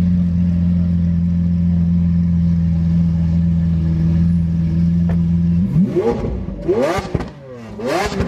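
Lamborghini Aventador LP700-4's V12 engine idling steadily, then about five and a half seconds in revved sharply twice, the pitch rising and falling with each blip of the throttle.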